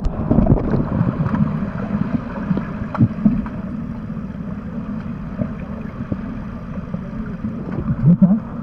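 Underwater pool sound through a submerged camera: a steady, muffled low rush of water and bubbles churned up by swimmers' fins, with scattered faint clicks. There is a short rising pitched sound near the end.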